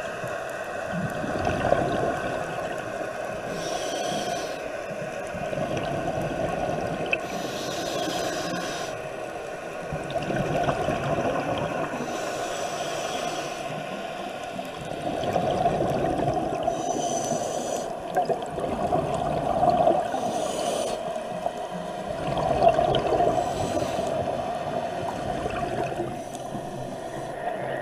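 Scuba diver breathing through a regulator underwater: a short hiss on each inhale about every four seconds, with exhaled bubbles gurgling between breaths.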